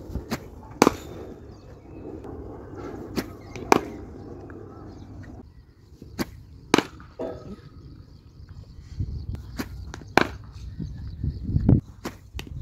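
Cricket ball and bat in side-arm throwdown practice: sharp knocks, often in pairs about half a second apart, coming every three seconds or so.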